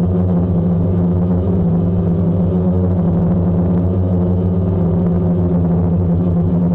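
Background electronic music: a steady, sustained synthesizer drone with no beat or sudden events.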